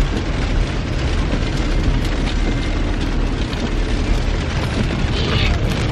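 Steady road noise inside a moving car's cabin: a low rumble with tyre hiss.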